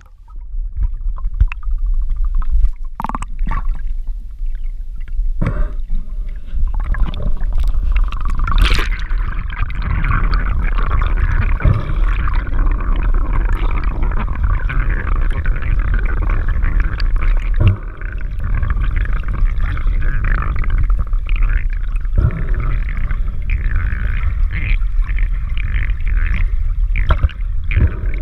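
Underwater sound picked up by a GoPro Hero4 in its waterproof housing: a steady low rumble of water moving against the case, with a few knocks in the first several seconds. From about eight seconds in, a steady rushing hiss joins the rumble.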